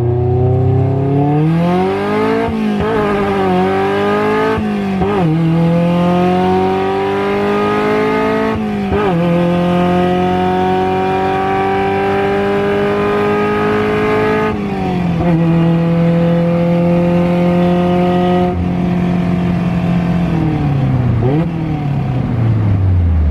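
Car engine heard while driving with a manual gearbox. The pitch climbs and then drops at each of several gear changes in the first part, holds steady at a cruise with one step down in the middle, then falls away steadily as the car slows near the end.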